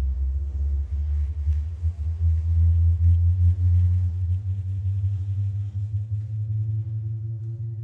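Very loud sub-bass sine tone from two Hog Scoop horn subwoofers, a deep hum sweeping slowly upward in pitch as it moves through the room's resonant frequencies. Fainter overtones ride above it, along with a faint rattle and buzz from the building shaking.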